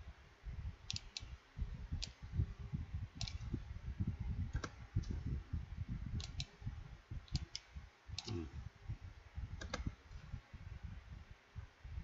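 Scattered sharp clicks of a computer keyboard and mouse, about a dozen, several coming in quick pairs, over a low irregular rumble.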